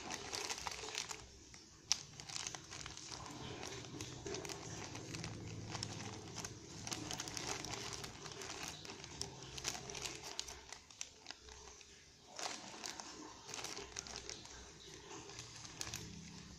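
Clear plastic bag of small kit parts crinkling as it is handled and turned over, in spells with brief pauses about a second in and about twelve seconds in.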